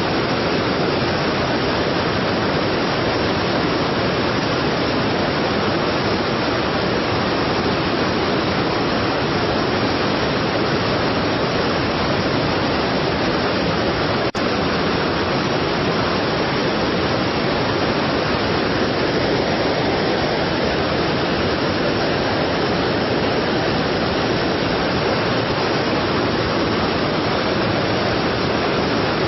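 Strong waterfall: a steady, even rush of falling water, with one faint click about halfway through.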